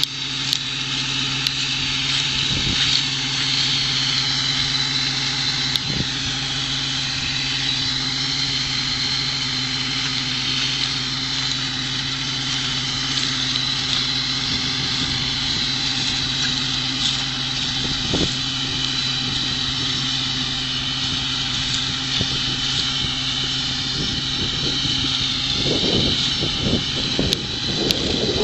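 Ursus 914 tractor's diesel engine running steadily under load while it pulls a slurry tanker spreading slurry, with some irregular low rumbling near the end.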